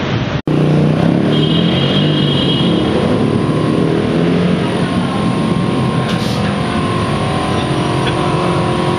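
Motor vehicle engines running close by, a steady traffic hum with shifting engine tones, after a brief dropout about half a second in.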